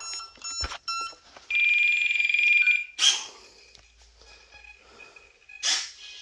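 Power-up beeps from an RC plane's electronics, the E-flite 30A smart brushless ESC and the Spektrum NX8 transmitter, just switched on. A few short beeps come first, then one steady high beep about a second and a half long. Two short noisy bursts follow, one near the middle and one near the end.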